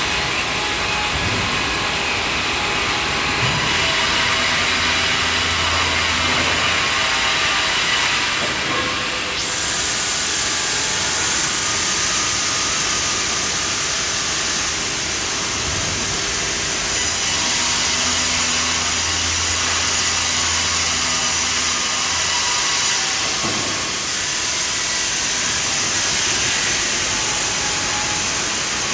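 Jabłoński PTP1309C vertical band sawmill running with a steady mechanical noise. Twice, for about five seconds each, a low hum joins in and the sound changes: about four seconds in, and again past the middle.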